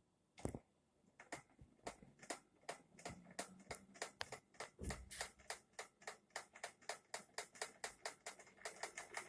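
Geared e-bike hub motor, a Q100-type clone, knocking with sharp regular clicks that come faster as the wheel speeds up, from about two a second to about five a second. The knock is a fault inside the motor-wheel that the owner does not know how to cure.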